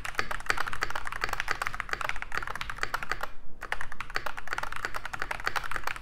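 Fast typing on a Keychron K10 Pro full-size mechanical keyboard with brown switches: a rapid, continuous run of key clicks with a brief pause just past halfway.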